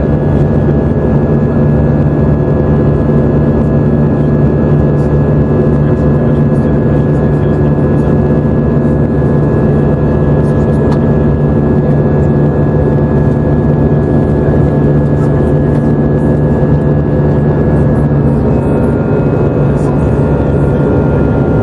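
Cabin noise of an easyJet Airbus A320-family airliner in cruise, heard over the wing: a steady rush of turbofan engines and airflow with a constant low hum and a few higher steady tones. A few seconds before the end, some of the tones change pitch.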